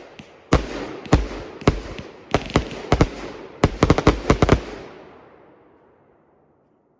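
A 1.4g firework cake with silver thunder (tuono) effects firing a string of sharp report bangs. The shots come faster and bunch together towards the middle of the string, ending with a rapid volley that echoes away to silence, the last shots of the cake.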